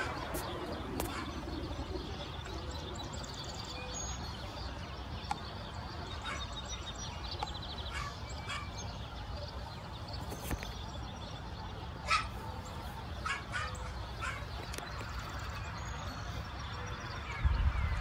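Scattered short bird chirps and sharp chip notes from small songbirds, with a brief quick high twitter a few seconds in and a cluster of chips later on, over steady low outdoor background noise.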